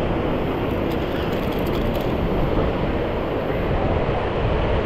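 Steady rushing noise of wind buffeting the microphone, with sea surf behind it.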